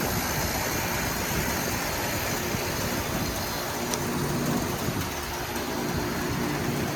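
Outdoor heat pump units running steadily: a low compressor hum under an even hiss, with one unit in defrost mode.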